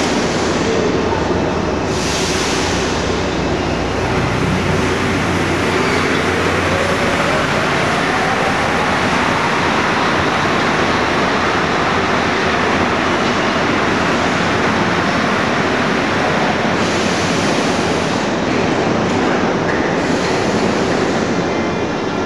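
Paris Métro trains in a vaulted underground station: one pulls out with a motor whine rising in pitch over several seconds, while another rolls in alongside the platform. Steady, loud rolling rumble and echo throughout.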